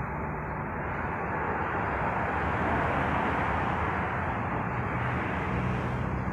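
Steady outdoor background noise: an even rushing hum with no distinct events.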